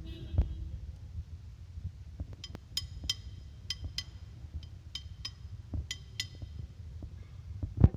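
Metal engine parts or tools clinking together, about ten light ringing clinks, some in pairs, over a low background rumble, with a louder thud near the end.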